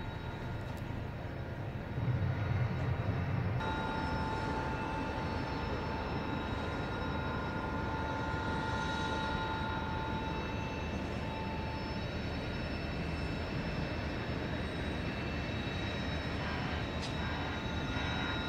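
Potain tower crane's electric drives running, heard from the operator's cab: a steady mechanical hum and rush with a high whine that sets in about four seconds in.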